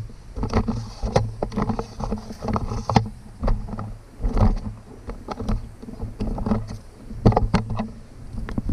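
Footsteps and scuffing on a flat rolled-roofing roof, irregular knocks about one or two a second, over a low rumble that comes and goes.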